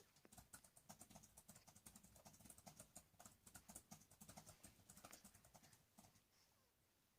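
Near silence with faint, quick, irregular clicks and taps that thin out about six seconds in.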